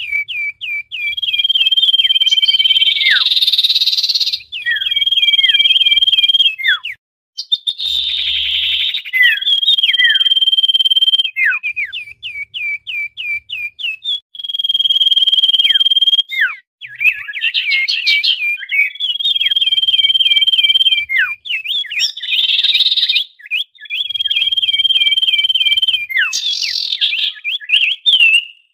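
Common iora (sirtu/cipoh) calling busily: a long held whistle followed by a run of quick down-slurred notes and a scratchy chatter, the phrase repeated over and over.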